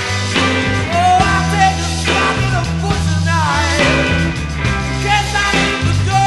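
Psychedelic rock music: a full band with bass and guitar, with sliding, bending lead lines.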